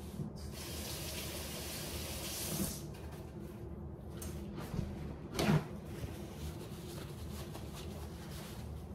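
Kitchen faucet running for about two seconds while hands are rinsed, then shut off. A short thump follows about five and a half seconds in.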